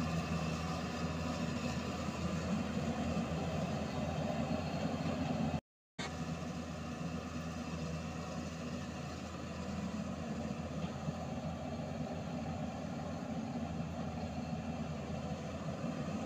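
Diesel engines of a Hyundai 220LC-7 crawler excavator and a tipper truck running steadily together while the excavator loads the truck. The sound drops out completely for a split second just before six seconds in.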